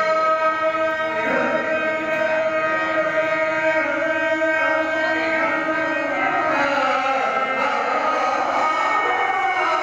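A Telugu padyam, the verse of a padya natakam, sung in long, ornamented held notes. It rides over steady drone-like accompanying tones, and the melody dips and bends near the middle.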